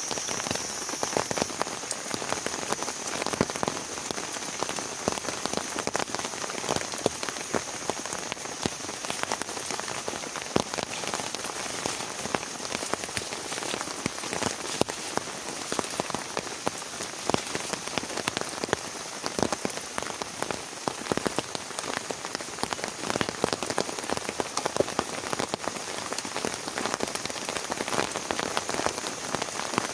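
Heavy rain falling steadily, a dense stream of individual drop impacts with no let-up.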